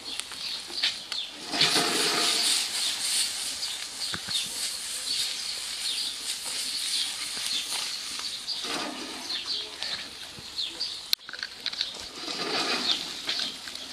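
Oyster mushrooms and vegetables frying in a wok over a fire, the pan being shaken and tossed: a steady sizzle with three swishing surges as the food slides around the wok, and one sharp click about eleven seconds in.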